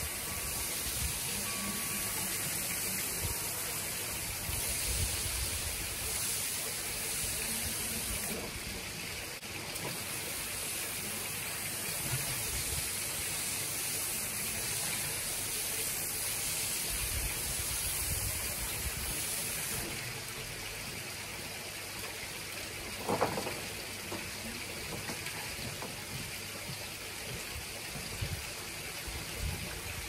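Water jet spraying onto a soapy rug and wet decking, a steady hiss and splatter as the suds are rinsed off.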